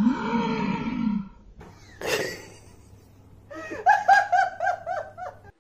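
A person gives a long exclaiming cry that rises and falls in pitch, then breaks into laughter, a quick run of short 'ha-ha' bursts from about halfway through.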